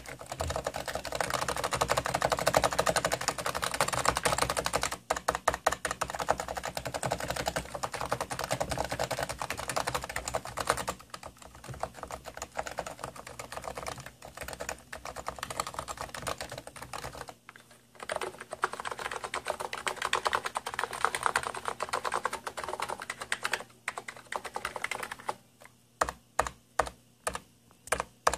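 Hansung electrostatic-capacitive (contactless) keyboard being typed on fast: dense runs of keystrokes broken by brief pauses, making a key noise the owner calls grating. Near the end the typing slows to single, evenly spaced key presses, about two or three a second.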